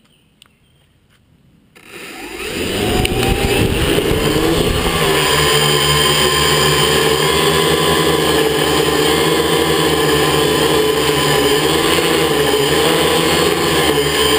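Quadcopter's electric motors and propellers spinning up from rest about two seconds in, then running steadily as it flies, a hum of several steady pitches that waver slightly together.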